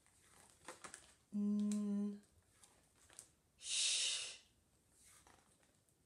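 A woman saying isolated phonics sounds: a faint short "p" under a second in, then a held hummed sound for about a second, then a long "shhh" hiss.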